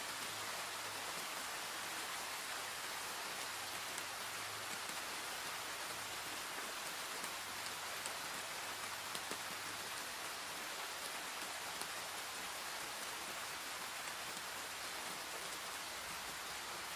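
Steady rain falling, with the odd individual drop ticking out above the even hiss.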